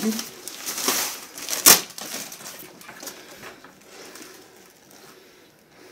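Clear plastic packaging and a fabric window seal rustling and crinkling as they are handled, with one sharp crackle a little under two seconds in. The rustling dies down over the last couple of seconds.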